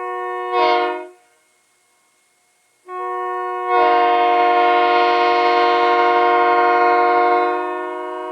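Leslie S3K three-chime locomotive air horn, fitted with a replacement 37 bell, blown on compressed air. A short blast that gets louder partway through, then after a pause of about two seconds a long chord blast that starts softer, swells to full strength and is still sounding at the end.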